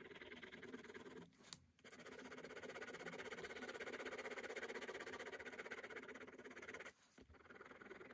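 Four-colour ballpoint pen hatching quickly on sketchbook paper, a fast, faint scratchy back-and-forth of strokes. It pauses briefly with a single tick about a second and a half in, and dips again shortly before the end.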